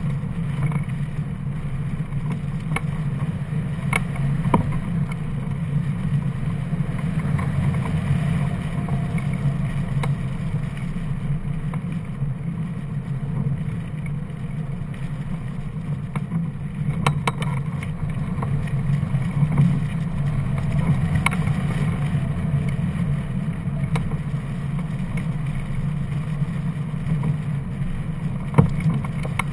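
Air rushing past a hang glider and its wing-mounted camera in flight: a steady low rumble of wind on the microphone, with a few sharp clicks.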